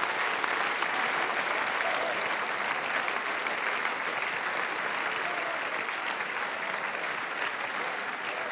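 Audience applauding: dense, steady clapping from a large hall crowd that eases off slightly toward the end.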